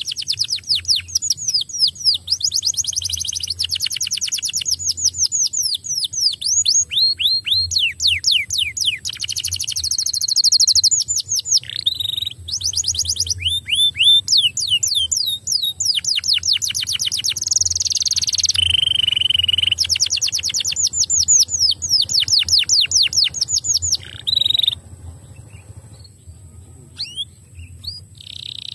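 Domestic canary singing: fast trills of quickly repeated falling whistled notes, phrase after phrase, with a few steadier buzzy notes between them. The song thins out near the end.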